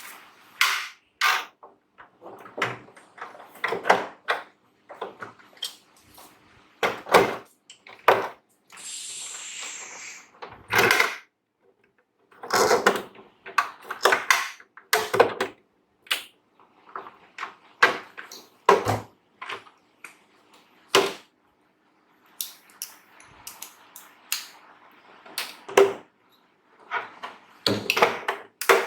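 Irregular knocks, clicks and clatters of tools and small machine parts being handled on a workbench. There is a brief hiss about nine seconds in.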